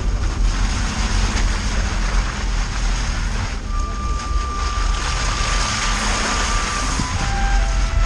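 Wind rushing over an action camera mounted on the outside of a Suzuki off-road vehicle, over the low rumble of the vehicle driving along a muddy dirt track. The sound is steady, with no breaks.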